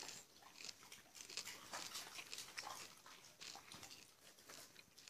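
Faint, irregular crunching and small clicks of popcorn being chewed.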